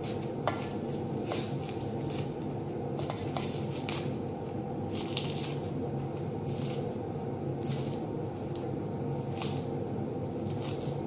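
Dry red onion skins crackling and rustling in short, irregular bursts as they are peeled off with a small knife, over a steady low hum.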